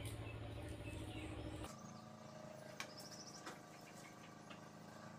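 Light clicks of fingers and boiled jackfruit seeds against a steel plate as the seeds are mashed by hand, over a faint background with small bird chirps. A low steady hum cuts off suddenly about a second and a half in.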